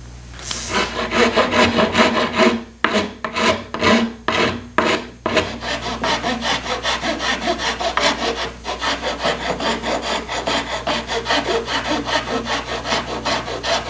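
A hand tool stroked back and forth on wood, shaping a repaired section of a carved sofa frame: a few slower, heavier strokes, then a steady quicker rhythm of about three strokes a second.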